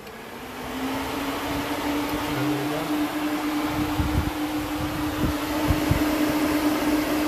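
Aftermarket electric radiator cooling fan switched on. It spins up, its motor hum rising in pitch over about the first second, then runs steadily with a loud rush of air. A few low thumps come midway.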